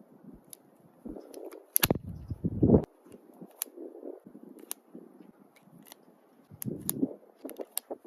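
Handling of a Webley Mk IV revolver: a string of sharp metallic clicks, with a louder thud and rustle about two seconds in and again near the end.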